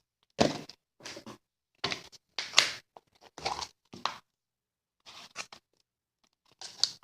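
Short rustling, scraping handling noises, about eight of them with pauses between, as a slime container is opened and the slime inside is handled.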